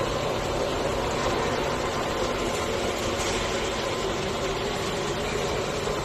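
Steady drone of cable-making machinery running in a factory hall: an even hiss with a low hum and a few steady tones beneath it.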